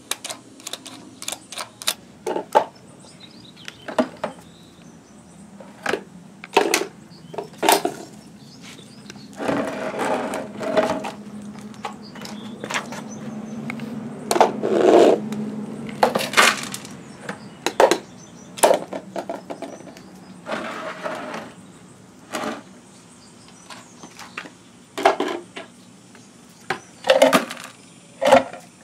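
Unger Grabber Plus reacher's plastic claw clicking and clacking as its trigger is squeezed and released, with irregular knocks and scrapes of small plastic toy bins being gripped on concrete and handled around a plastic waste basket.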